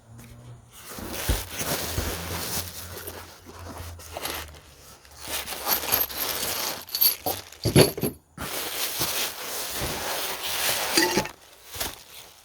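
Packaging rustling, scraping and tearing as new suspension parts are unwrapped, with scattered clicks and a sharp knock about eight seconds in.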